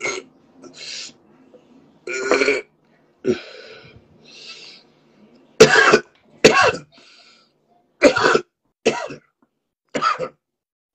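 A man coughing in a string of short, harsh coughs about a second apart, the loudest pair about six seconds in.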